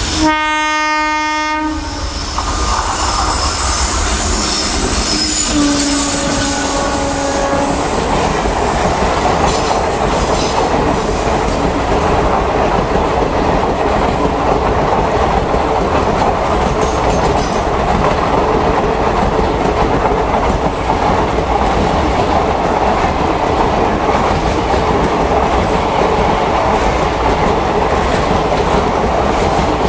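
Indian Railways locomotive horn sounding twice, once at the start and again about five seconds in. It is followed by the long, steady clatter of a passing train's wheels over the rail joints.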